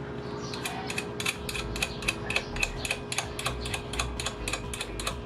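Ratchet wrench clicking rapidly, about five clicks a second, as a nut on the motorcycle is turned.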